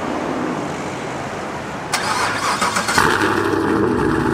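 2021 Chevrolet Camaro 1LE starting up through its AWE Track Edition exhaust: the starter cranks about two seconds in, the engine catches a second later with a sudden loud blip, then settles into a steady idle.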